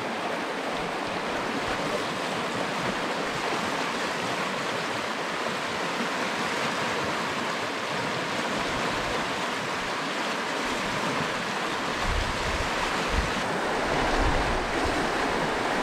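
Steady rush of river water running over rapids and rocks. In the last few seconds low wind buffeting on the microphone joins it.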